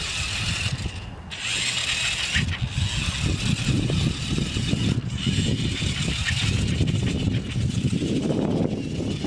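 Toy remote-control monster truck's motor and gears whirring as it drives, with a low rumble underneath and a brief drop about a second in.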